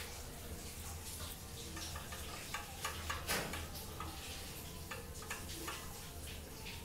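Irregular small clicks and ticks as the sliding poise weight of a balance-beam scale is nudged along its beam, most of them about halfway through, over a steady low hum.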